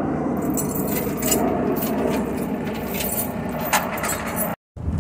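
Flatbed tow truck's engine running steadily, with a few light metallic clinks.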